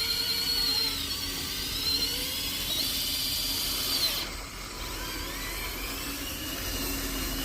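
High-pitched small-motor whine, its pitch wavering up and down, then holding steady before cutting off suddenly about four seconds in; a fainter whine carries on after.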